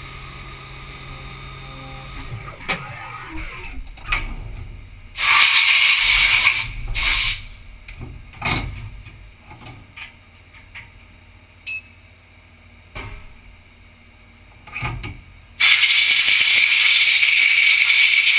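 Haas Super Mini Mill 2 running a steady hum that stops about two seconds in. Then two loud blasts of compressed air, one about two seconds long and one about three seconds long, clear aluminium chips, with clanks and knocks of metal being handled between them.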